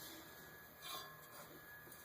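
Near silence: faint room tone, with one brief faint rustle about a second in.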